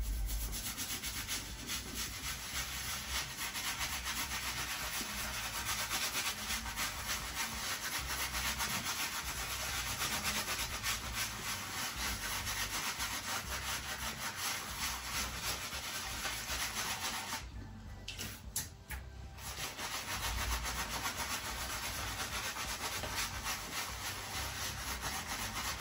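Wet Zenith shaving brush scrubbing Haslinger sheep's milk shaving soap into lather over three-day stubble: a steady bristly swishing, with a short break about two-thirds of the way through.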